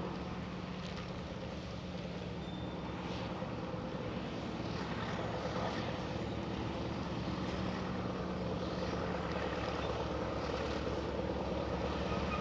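Monighan 9W walking dragline working: its machinery runs steadily with a fast low pulsing as the bucket is dragged in and then hoisted. It grows a little louder about halfway through, with faint clinks over it.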